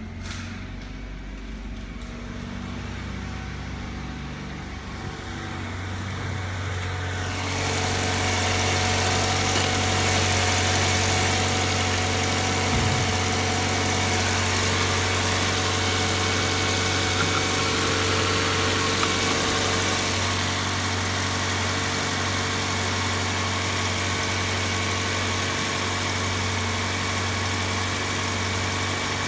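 Ford Focus 1.6-litre 16-valve Zetec-SE (FYDC) four-cylinder petrol engine idling steadily. It is muffled, as heard from the cabin, at first, then louder and clearer from about seven seconds in, heard in the open engine bay.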